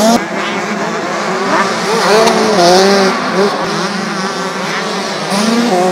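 Motocross bike engines revving hard on the race track, their pitch rising and falling repeatedly as riders open and close the throttle and shift, with more than one bike heard at once.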